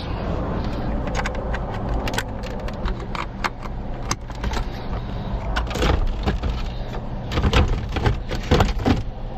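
Scattered sharp clicks, knocks and rattles of parts and clips being handled and fitted inside a car, over a steady low hum.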